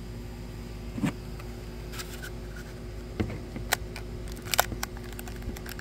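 Plastic toy packaging being handled and opened: scattered sharp clicks and crinkles at irregular intervals over a steady low hum.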